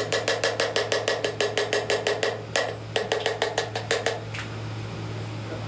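A clear food jar with a metal rim, held upside down and shaken hard, knocking and rattling about five times a second in two bursts with a short break between. The shaking is meant to free a large piece of sauced octopus stuck inside.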